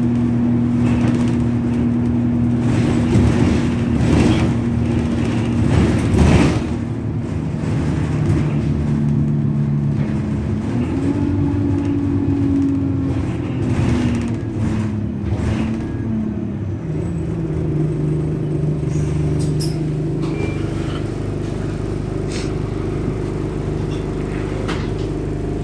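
Interior noise of a single-deck diesel bus under way, heard from inside the passenger cabin. The engine drone changes pitch several times as the bus accelerates and shifts gear. Loud knocks and rattles from the body and fittings come in the first quarter.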